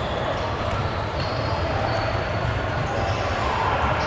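Basketball game noise on an indoor court: a ball bouncing on the floor amid a steady mix of players' and spectators' voices.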